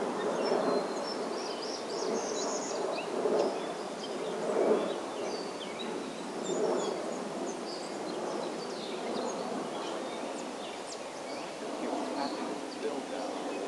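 Outdoor woodland ambience: a steady low hum and rush, with many faint, short, high bird chirps and song notes scattered throughout.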